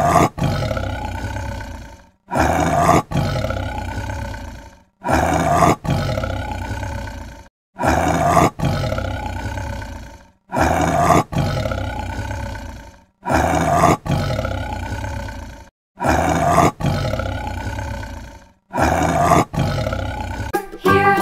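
Tiger roar sound effect, the same roar repeated about eight times at even spacing, one every two to three seconds. Each roar starts sharply and fades out over about two seconds.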